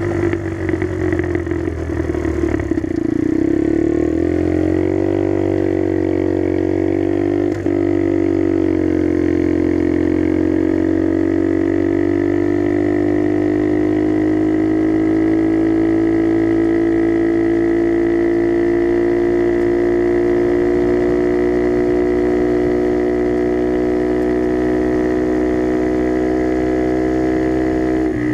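Skyteam Dax mini motorcycle's single-cylinder four-stroke engine running through an aftermarket NHRC carbon exhaust while riding. Its pitch falls about two to four seconds in, then climbs slowly and evenly at a steady pull. There is a brief click about seven and a half seconds in.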